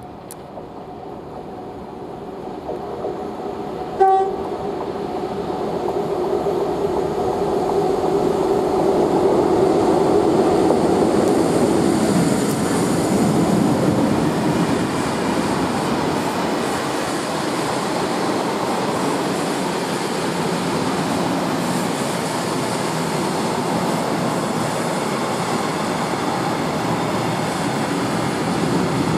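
Diesel freight train: a Class 60 locomotive approaching with a steady engine hum, giving one short horn blast about four seconds in. Then a loaded freight train rolls past close by, with a loud steady rumble of locomotive and wagon wheels on the rails.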